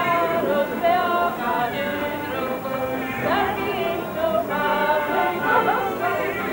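Group of voices singing a folk dance song, the tune carried in held, gliding notes.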